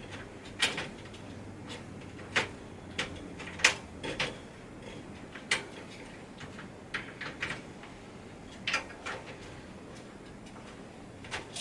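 Irregular small clicks and taps of a Torx screwdriver and metal parts as the screws of a desktop PC's CPU cooler are undone and the cooler is worked loose.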